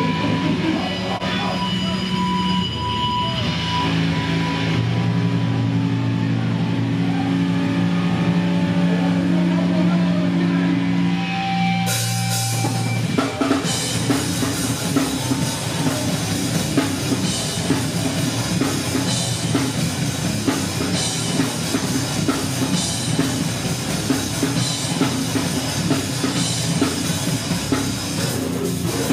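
Heavy rock band playing live: sustained low distorted notes ring out, then about twelve seconds in the drums and cymbals crash in and the full band plays fast and dense.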